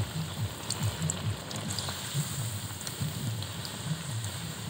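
Par-boiled potato fingers deep-frying in hot refined oil over medium heat, the oil sizzling and crackling steadily through their first fry. A few faint clicks are heard as a wire skimmer moves through the oil.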